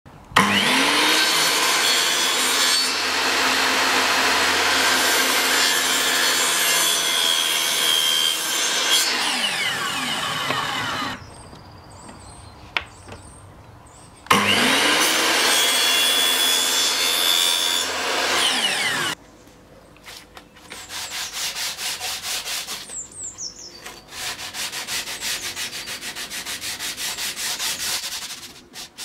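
Bosch mitre saw making two cuts through a thin wooden strip: each time the motor whines up to speed, the blade cuts and the motor winds down. Then, about twenty seconds in, the strip's edge is hand-sanded with sandpaper on a sanding block in quick back-and-forth strokes.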